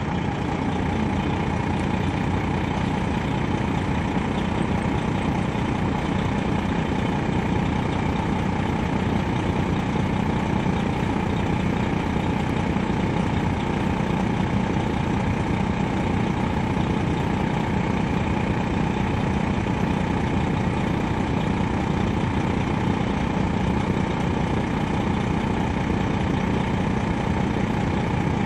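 Detroit Diesel Series 60 engine of a 2003 MCI D4500 coach bus running steadily, heard from on board the bus, with no revving up or down.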